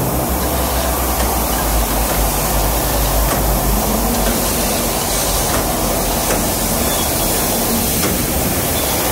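Concrete sleeper-casting machine running over the sleeper moulds: a continuous loud mechanical din with a strong low rumble under it.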